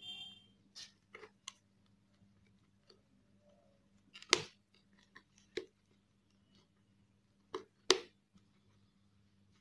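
Plastic clips of a motorcycle helmet's padded liner pressed into the shell: several sharp clicks and snaps amid soft handling, the two loudest about four and eight seconds in. A snap is the sign that a clip has seated.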